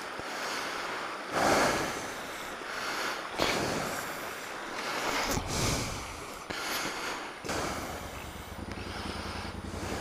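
Gusts of rushing noise, then about eight and a half seconds in a motorcycle engine starts idling with a steady, even beat.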